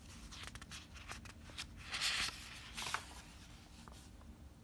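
Paper page of a picture book being turned: a soft swish about two seconds in and a shorter one just before three seconds, with a few light handling clicks.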